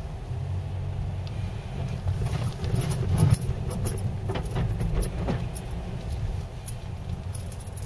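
A car's low engine and road rumble heard from inside the cabin, with a run of crackling, clicking sounds from about two seconds in to near the end as the tyres roll over rutted, frozen snow and ice.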